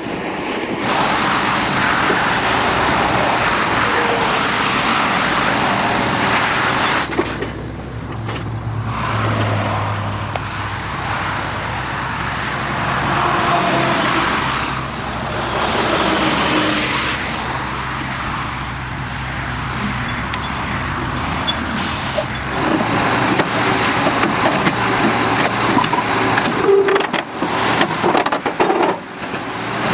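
Heavy machinery running, a continuous mechanical din that changes abruptly several times.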